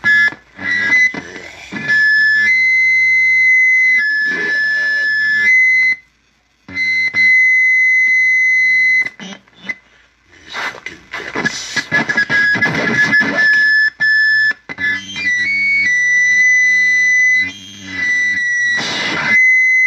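Live experimental noise music from electronics and effects: held high whistling tones over a stepping low pulse, cut through several times by loud blasts of harsh noise, dropping out briefly and starting again.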